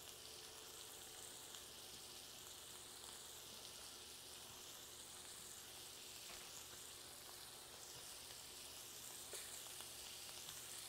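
Beef pieces frying in butter in a hot pan, a faint, steady sizzle, with a few faint ticks as more pieces are laid in.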